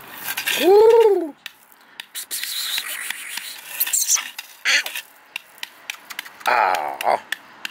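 American Bully puppy giving one loud whine about a second in, its pitch rising then falling, followed by small squeaks, rustling on the blanket and a few soft voice sounds near the end.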